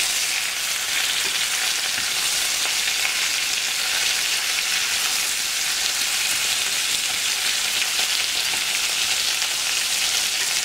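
Pork tail pieces sizzling steadily in a hot pot as they sear firm.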